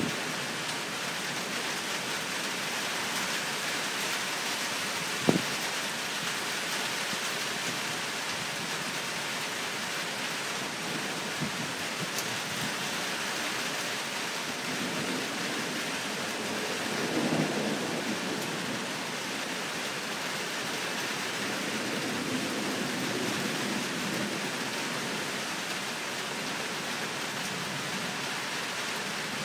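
Steady hiss of heavy rain during a thunderstorm, with thunder rumbling a little past halfway and again softer later. A single sharp click about five seconds in.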